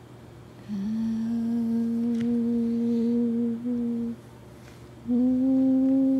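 A person humming one steady, held note twice: a hum of about three seconds with a brief break near its end, then after a short pause a second hum of about two seconds at the same pitch.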